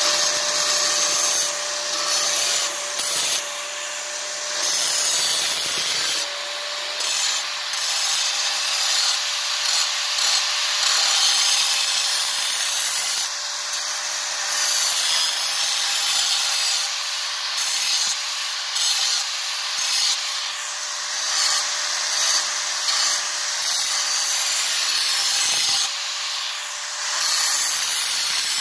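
Angle grinder with a diamond wheel running at full speed and cutting into a paving tile: a steady motor whine under a gritty grinding noise that swells and eases as the wheel is pressed into the cut.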